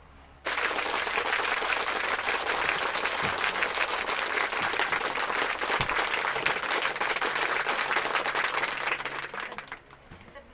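Crowd applause: dense, steady clapping that starts abruptly about half a second in and fades out near the end.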